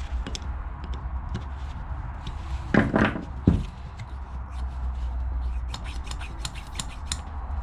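Small metal carburettor parts being handled and fitted by hand on a workbench: light clicks, taps and rubbing, with a louder brief handling noise about three seconds in.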